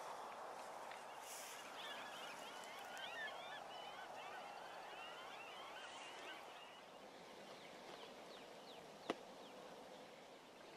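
Faint bird calls: a few seconds of overlapping, twittering calls over a steady outdoor hiss, with one sharp click near the end.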